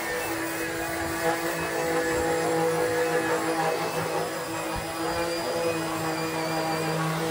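Two handheld electric power sanders running steadily together, their motors humming under a hiss of abrasive sanding a car hood's paint down to bare metal.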